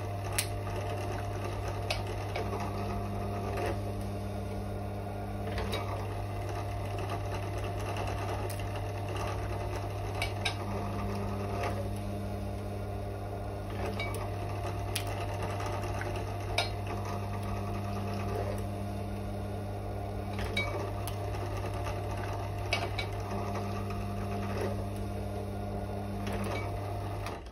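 Benchtop drill press running steadily as shotgun shells are pressed up to the spinning tool in its chuck, the roll-crimping of the shell mouths; a rougher tone comes and goes with each of several presses, with small clicks as shells are handled. The motor shuts off near the end.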